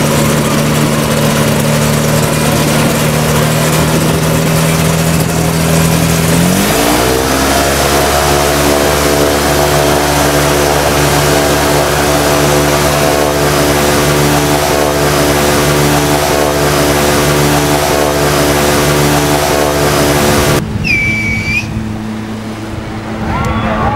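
Flying boat's engine running steadily, then about six seconds in revving up smoothly to a higher, steady pitch at high throttle as the craft drives out across the water. Near the end the engine sound drops to a quieter level.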